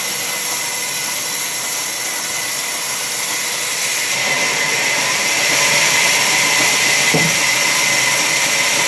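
Sawmill band saw running with a steady high whine and hiss as its blade rips lengthwise through a log. The cutting noise grows louder about halfway through, and there is a short knock near the end.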